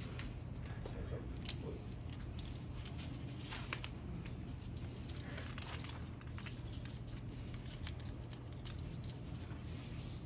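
Sidemount tank rigging being handled: scattered light clicks and clinks of stainless steel clips and D-rings, with rustling nylon webbing, over a steady low hum. The sharpest click comes about a second and a half in.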